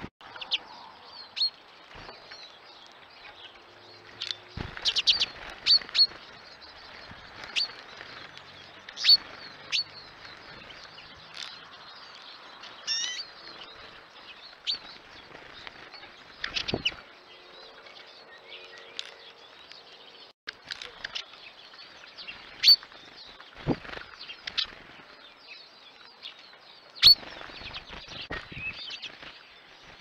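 Small finches and tits at a tube seed feeder: wings fluttering as they come and go, with sharp clicks and taps scattered irregularly and brief high chirps, including one warbling call about halfway.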